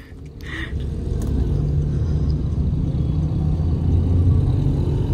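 Steady low road rumble of a car driving, heard from inside the cabin, fading in over the first second or so.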